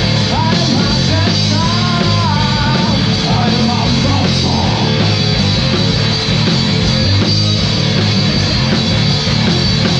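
Loud rock music: a drum kit with cymbals played hard over a full band track, with a melodic line bending in pitch over the first few seconds.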